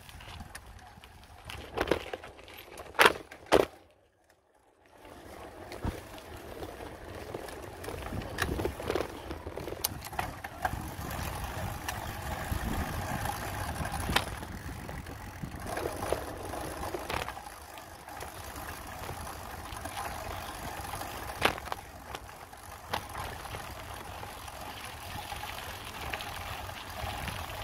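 Bicycle ride heard from a handlebar-mounted phone: a steady rumble of tyres on rough pavement, with sharp knocks and rattles from bumps. The loudest knocks come a few seconds in, and the sound drops out for about a second soon after.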